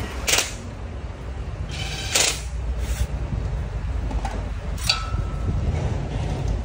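A steady low rumble with several sharp metallic clicks and knocks, like tools being handled on a car.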